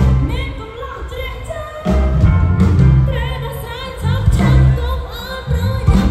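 Live band playing amplified dance music with a heavy bass line while a woman sings the melody through the PA.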